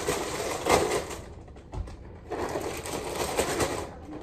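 Plastic liner bag of a cardboard cereal box crinkling and rustling as it is pulled open, in two spells with a short lull about halfway.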